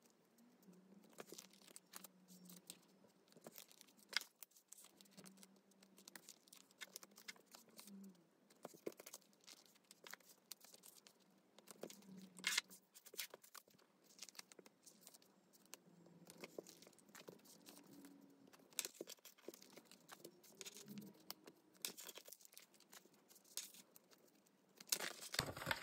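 Thin clear plastic photocard sleeves crinkling and rustling as cards are pulled out and slid into fresh sleeves, with scattered small crackles and clicks.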